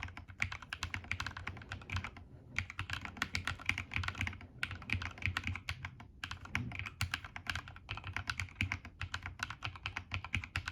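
Typing on a CSTC40 ortholinear mechanical keyboard with KNC Red Jacket 2.0 switches seated plateless in the PCB and DSA keycaps: fast runs of keystrokes, broken by a few short pauses.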